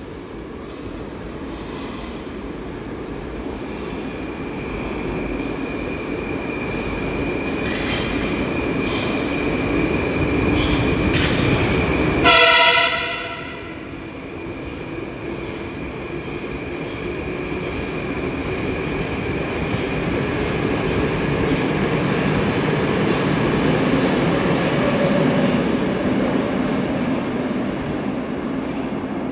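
Metro train running through the station, its rumble rising over about twelve seconds with a steady high whine over it. About twelve seconds in comes a brief, loud pitched blast, and the sound drops away sharply. The train's rumble then builds again and eases off near the end.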